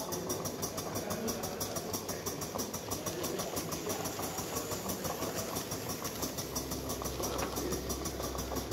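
Model steam engine and the belt-driven dynamo it powers, running steadily with a fast, even beat over a mechanical rumble.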